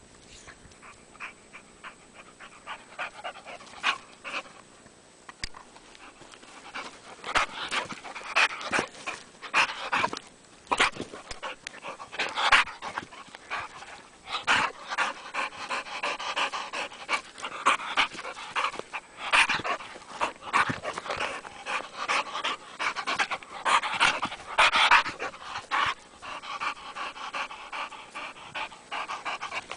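Dog panting with its mouth open, faint at first, then close and loud from about seven seconds in, with short pauses.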